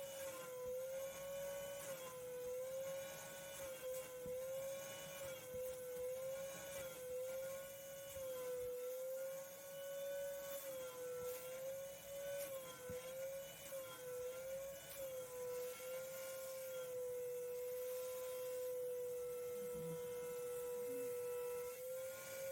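Vacuum cleaner motor whining as it sucks up cleaning foam, a steady high tone whose pitch wavers up and down repeatedly before settling to an even note about two-thirds of the way through.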